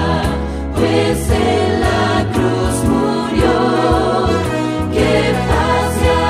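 Background music: a choir singing a Christian song with instrumental backing.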